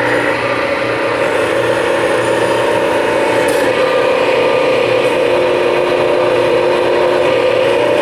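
Backhoe hydraulic pump on a homemade hydraulic press running steadily under power, a continuous mechanical drone with several steady whining tones.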